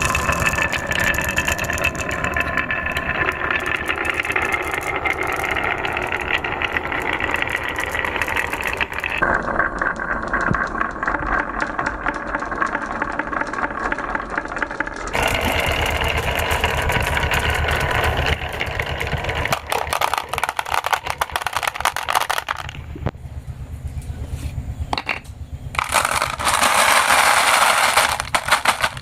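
Colour balls rolling and clattering down a marble run of wooden track, twist rail and transparent pipe, a continuous rolling rumble thick with small clicks. The sound changes character several times as the balls pass into different sections, with a louder rushing stretch near the end.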